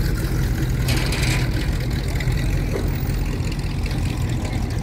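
Classic cars' engines rumbling as they cruise slowly past in a line, a steady low exhaust note. A brief hiss rises over it about a second in.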